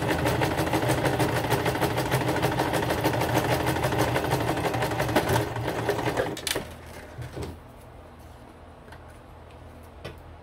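Electric sewing machine running a zigzag stitch through a paper collaged card, with a rapid, even stitching rhythm that stops about six and a half seconds in. A few light clicks follow.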